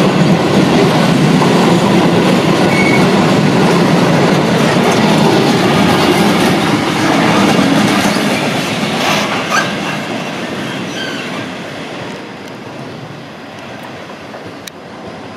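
Freight train of open box wagons running past at close range, its wheels rumbling and clattering over the rail joints with a few brief squeals. The Class 66 diesel locomotive on the rear then passes, and the sound fades away over the last few seconds.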